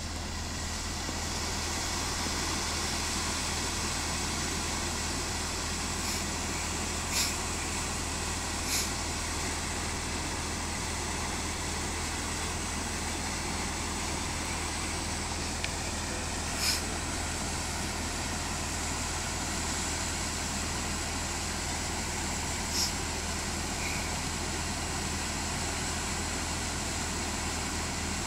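Diesel excavator engine idling steadily, with a few short, sharp high clicks now and then.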